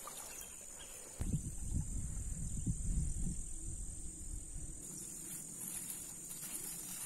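Insects buzzing steadily in a high, unbroken drone. A low, uneven rumble comes in about a second in and fades out about five seconds in.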